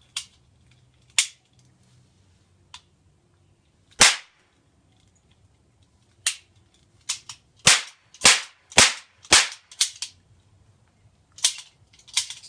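Toy cap gun firing its caps: about a dozen sharp cracks at uneven intervals, the loudest about four seconds in, coming faster and closer together near the end.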